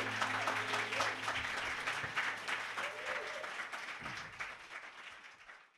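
Live audience applauding and cheering, with a voice calling out about three seconds in. The last notes of music die away under the clapping in the first second or so, and the applause fades out near the end.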